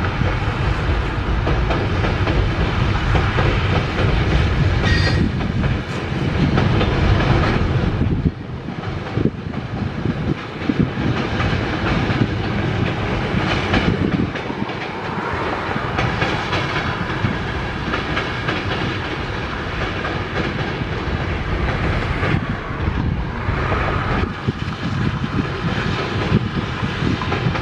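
Freight train of tank cars and covered hoppers rolling across a steel girder bridge: steady rumble of wheels on rail with clickety-clack over the rail joints, and a brief high-pitched tone about five seconds in.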